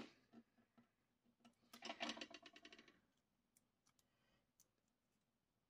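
Backing film being picked and peeled off a strip of double-sided tape: a rapid run of small crackling clicks about a second long, about two seconds in, with a few faint ticks before and after.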